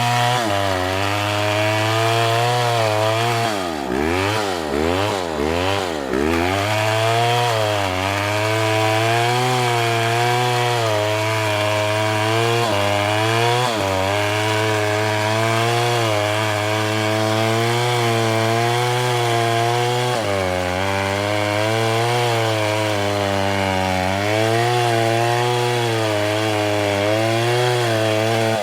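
A STIHL two-stroke chainsaw running under load as it cuts through a palm trunk, its engine pitch wavering as the chain bites. A few seconds in, the throttle is blipped up and down several times in quick succession before the steady cutting resumes.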